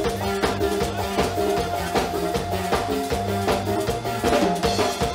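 Instrumental Latin dance music: drum kit, hand percussion and maracas keeping a steady dance beat over a bass line, with a held note running above, and no singing.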